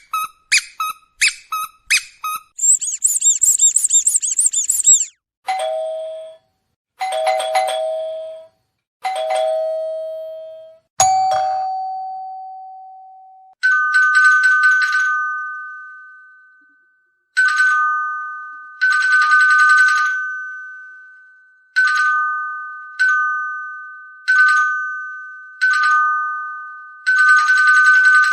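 A run of dog-baiting sound effects: quick squeaky chirps, a brief high jingling rattle, then a doorbell ringing its two-note ding-dong over and over, first at a lower pitch and then at a higher one.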